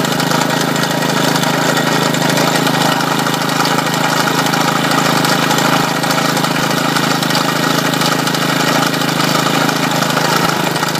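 Honda four-stroke lawn mower engine running at a steady speed while it turns a GM 3-wire alternator with its fields energized: the engine is under the alternator's load, charging a 12-volt battery at about 14.5 volts.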